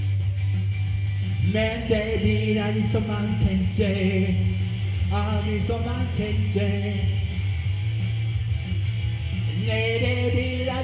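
Rock song: a man singing over an electric guitar, with a steady low chord running underneath. The singing comes in about a second and a half in, drops out for a few seconds in the second half, and comes back near the end.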